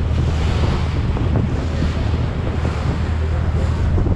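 Wind buffeting the microphone over water rushing and churning in the wake along a moving ferry's hull, with a steady low engine drone underneath.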